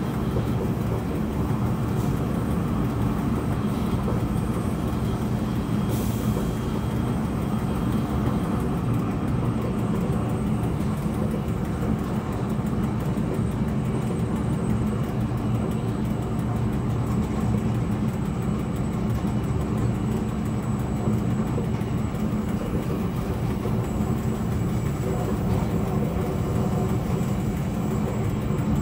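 Steady running noise of a train hauled by an SBB Re 420 electric locomotive, with a single sharp click about six seconds in.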